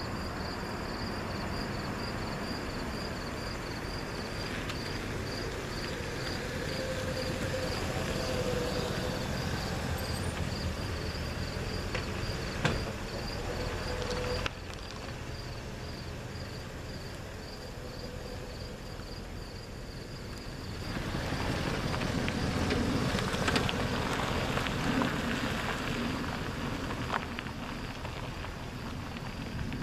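A 1960s Lincoln Continental's V8 running as the car drives up the street and passes close by, growing louder toward the pass about halfway through. Crickets chirp in an even, steady pulse behind it. After an abrupt break the sound grows louder and noisier again for several seconds near the end.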